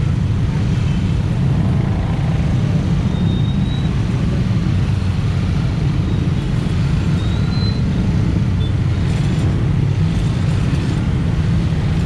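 Steady low rumble of many motorcycles idling together in a queue, with general road traffic noise.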